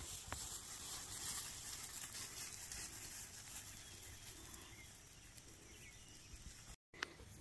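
Faint outdoor background: a steady high hiss with light rustling in the grass as two puppies trot through it, growing quieter after about four seconds. A brief click near the end.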